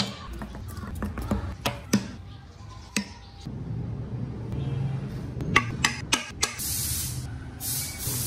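Light wooden clicks and knocks as small carved wooden wheels and rings are handled and set down on a wooden workbench, about eight in all. Near the end a steady hiss comes in.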